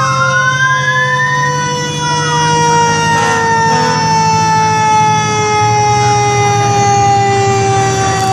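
Fire truck siren sounding as the truck passes close by. It rises in pitch in the first second or so, then holds a long wail that slowly falls in pitch as it winds down, over a steady low drone.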